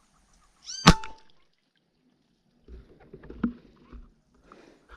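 Single sharp shot from an air rifle about a second in, at the same moment as a short high call that rises and falls in pitch. Fainter rustling and a small click follow around three and a half seconds in.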